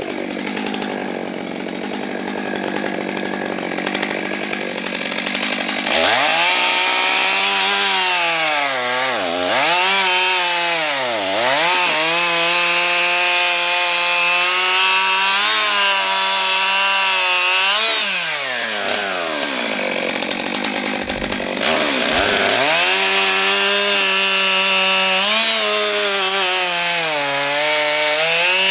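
Stihl MS 661 C-M, a 91 cc two-stroke chainsaw, running at high revs while cutting through logs. Its pitch sags several times as the chain loads up in the wood, then climbs back. The sound changes abruptly twice, about 6 and 22 seconds in.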